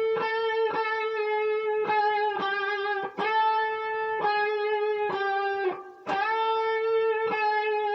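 Electric guitar playing single picked notes, one every half second or so, each note ringing into the next. The pitch steps slowly downward: a blues phrase walked down chromatically from the 4th through the major third to the minor third.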